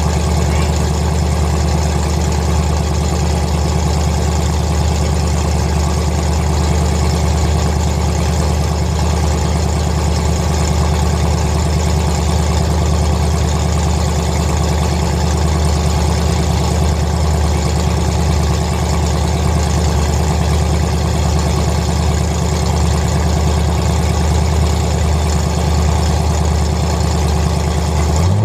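Demolition derby car's engine idling steadily with a loud, even, low rumble.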